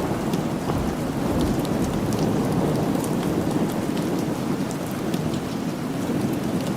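Steady rain with a low rumble of thunder underneath, and scattered small sharp ticks throughout.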